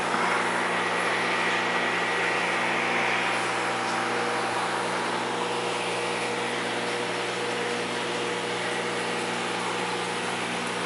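Aquarium wet/dry filter system running: a steady pump hum under an even rushing hiss of high-flow water.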